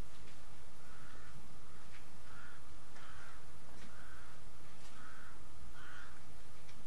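A crow cawing repeatedly: about six short, harsh caws roughly a second apart.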